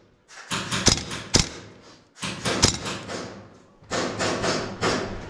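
A player's heavy, hard breathing on the microphone, three long breaths each starting abruptly and fading, with a few sharp cracks among them.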